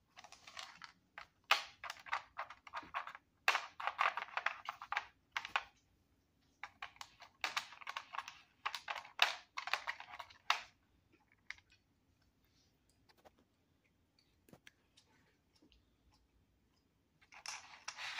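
Plastic cat treat puzzle clicking and rattling as a cat paws at its ladybug pieces and leaf covers. The sound comes in bursts of rapid clicks with pauses between, then mostly stops for several seconds before a last burst near the end.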